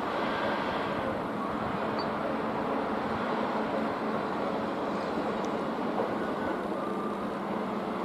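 Steady engine drone with a constant low hum, holding an even pitch and level throughout.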